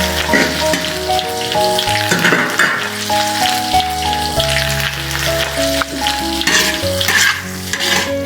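Wild mushrooms and cured pork sizzling in hot oil as they are stir-fried, with several surges of louder sizzling as the food is turned. Background music with a melody runs underneath.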